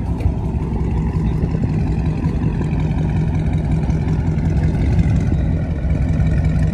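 Dodge Charger V8 exhaust idling with a steady, even rumble.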